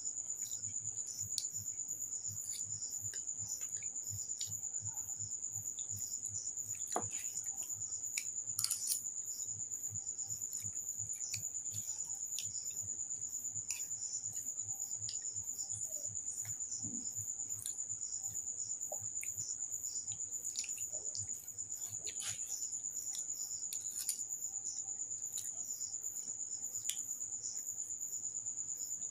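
Crickets chirping in a steady, high, rapidly pulsing trill. A few sharp clicks of a spoon against steel dishes come through as someone eats.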